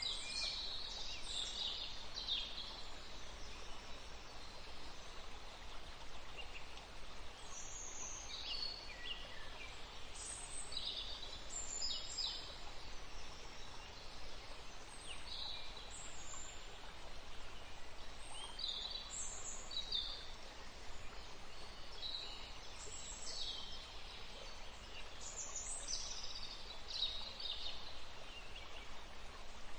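Wild birds singing and chirping, short high calls and trills coming every second or so from several birds, over a steady background hiss.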